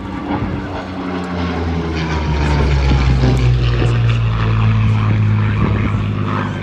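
Hispano Buchon's Rolls-Royce Merlin V12 engine and propeller as the aircraft flies a display pass, growing louder with its note falling over the first few seconds, then holding steady.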